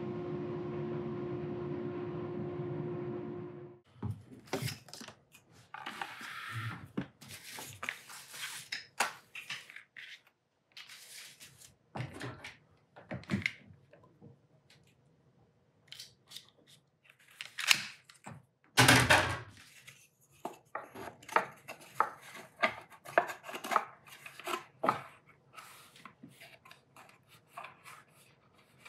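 A steady machine hum cuts off suddenly about four seconds in. It is followed by irregular clicks, taps and rustling of tools and small parts being handled, with a couple of louder knocks a little past the middle.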